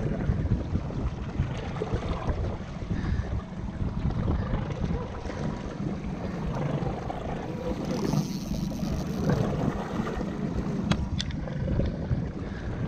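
Small fishing boat at sea: a steady low rumble with wind buffeting the microphone, and a couple of sharp clicks near the end.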